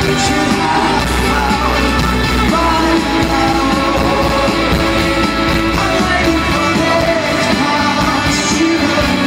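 Rock band playing live with a lead singer, loud and continuous.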